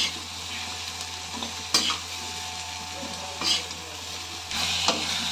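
Masala sizzling steadily in a steel kadai as boiled chickpeas are added, with a metal spoon scraping and clinking against the pan four times.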